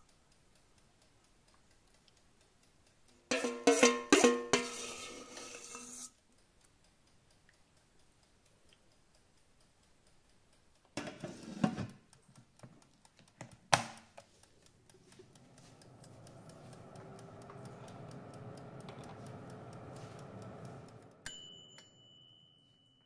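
A metal spoon clatters and rings against a stainless steel pot, then a few knocks. From about halfway through, a Mistral halogen oven's fan motor spins up with a rising hum and runs steadily. A click near the end and the hum dies away.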